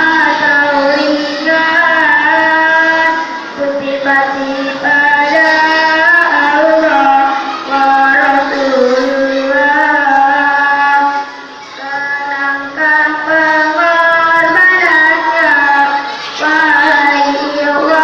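A young solo voice singing a slow, richly ornamented melody in long held phrases, with brief pauses for breath between them.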